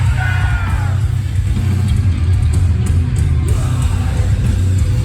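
Metalcore band playing live, loud and bass-heavy, with a sung vocal line in the first second.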